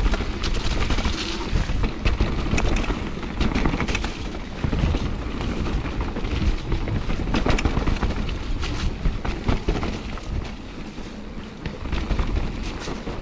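Mountain bike riding down a wet, muddy trail, heard from a bike-mounted action camera: wind buffeting the microphone over a steady rumble of tyres on the ground, with many sharp knocks and rattles from the bike as it goes over bumps.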